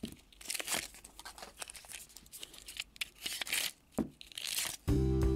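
Plastic toy packaging crinkling and tearing in the hands, with small clicks and rustles, as a mystery pack is handled and opened. Near the end, guitar music starts suddenly and is louder than the rustling.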